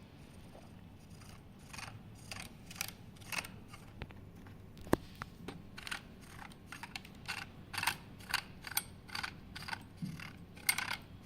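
Metal parts of an airgun pressure regulator being handled and its plenum screwed by hand onto the gun's plug: a string of light, irregular clicks and scrapes, with one sharper click about five seconds in.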